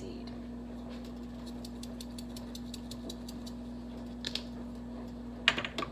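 Seasoning shaken out of a small plastic spice jar into a pot: light, irregular ticking, then a few sharper plastic clicks near the end, over a steady electrical hum.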